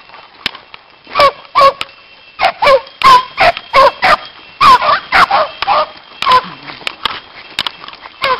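A pack of beagles baying while running a rabbit, short barking calls from several hounds, some overlapping, starting about a second in.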